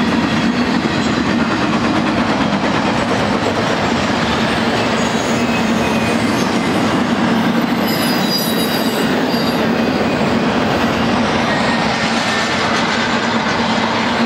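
Cars of a BNSF intermodal freight train rolling past: a steady rumble of steel wheels on rail, with faint high wheel squeals around the middle.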